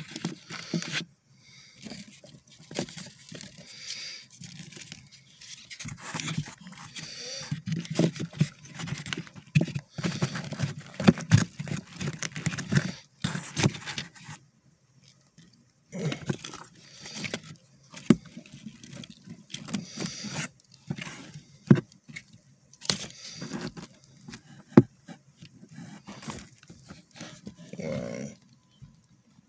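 Bark slabs, wood pieces and loose moss substrate being shifted and scraped by hand, a run of irregular rustles, scrapes and small knocks with a couple of short pauses.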